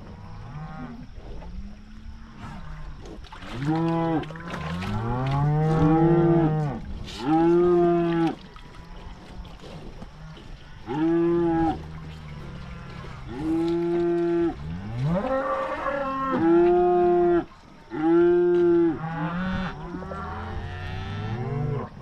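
Cows and calves bawling, many long moos from several animals overlapping, some deep and some higher-pitched. There are about eight loud calls in quick succession from about four seconds in.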